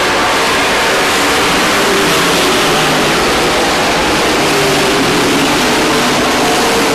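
A pack of dirt-track race trucks running on the oval: their engines make a loud, continuous blend of noise, with engine pitches shifting slightly as they race.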